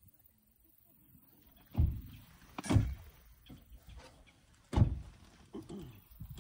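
Three dull knocks about two, three and five seconds in, the last the loudest: a metal cup and a drink can handled on a wooden camp table.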